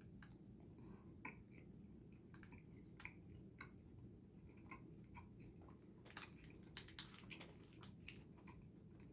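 Faint chewing and mouth clicks as a soft watermelon Pulparindo tamarind candy is eaten: scattered small wet clicks, busier about six to eight seconds in.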